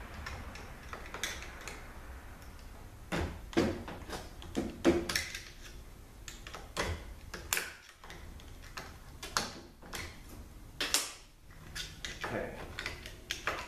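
Irregular metallic clicks, clinks and scrapes of a snap ring being worked out of a 42RLE transmission's clutch assembly, starting about three seconds in.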